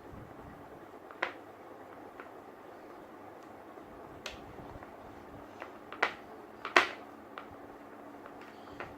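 A few scattered sharp clicks and taps of plastic Play-Doh tools and tubs being handled on a table, the loudest two close together about six and seven seconds in, over steady faint room hiss.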